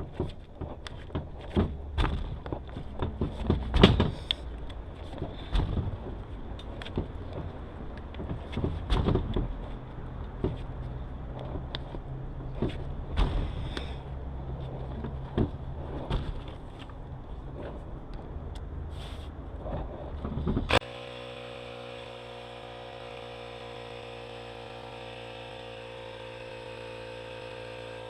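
Hands working a bicycle tire on its rim: irregular knocks, taps and rubbing. About two-thirds of the way in, a Ryobi handheld compressor starts suddenly and runs steadily, its pitch sinking slowly as it pumps up the tire.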